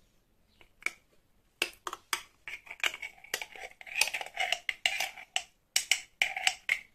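Metal spoon knocking and scraping inside a glass jar while scooping out thick sauce: a quick, uneven run of clinks with a faint ring. A few come about a second in, then they come thick and fast.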